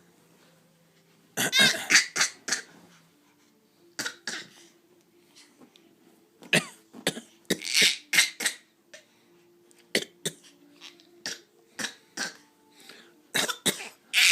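A small child giving put-on coughs, imitating an adult's cough: a string of short coughs in clusters with pauses between.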